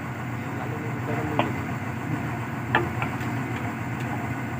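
Hyundai 215 excavator's diesel engine running steadily under load as the machine lifts itself on its arm. Sharp knocks come a little over a second in, then twice more in quick succession just past the middle.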